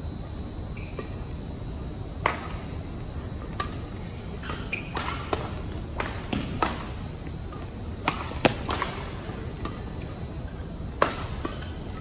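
Badminton singles rally: rackets strike the shuttlecock in sharp cracks, about ten of them at uneven intervals, over a steady hall hum.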